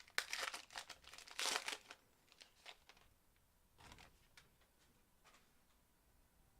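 Packaging crinkling and tearing as a trading card pack is opened, in a few bursts over the first two seconds, then some light handling clicks before it goes quiet.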